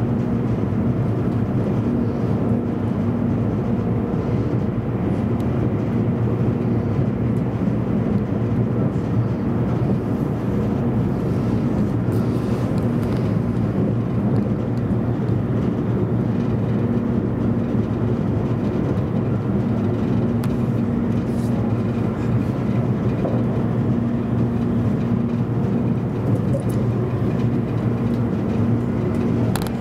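Interior running noise of a JR East E257 series 500-subseries electric limited express train at speed, heard from a passenger seat: a steady low hum with a few held low tones and no let-up.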